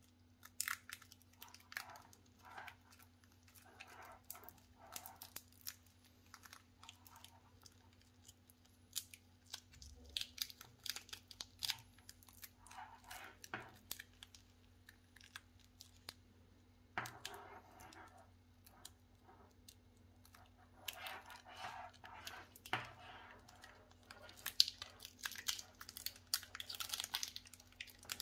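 Webcam packaging being handled and opened: irregular clicks, crinkling and tearing of plastic and cardboard, coming in short bursts and growing busier in the last few seconds.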